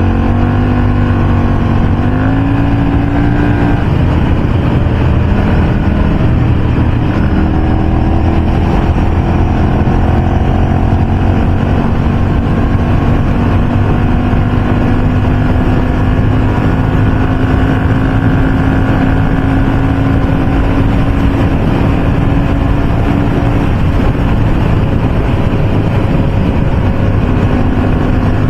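Motorcycle engine running at highway speed under a heavy low rush of wind and road noise. In the first few seconds the engine note dips and then climbs again, like a gear change. After that it rises slowly and steadily as the bike gently gains speed.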